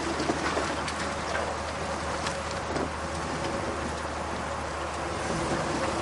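Chevy 4x4 pickup driving slowly on a wet dirt trail: a low steady engine hum under a steady hiss, with scattered crackles from the tyres rolling over mud and leaves.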